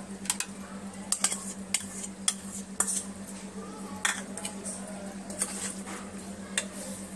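Metal spoon clinking and scraping against a metal cooking pot while yogurt and cream are stirred into chicken pieces: separate sharp clinks, irregular and roughly a second apart.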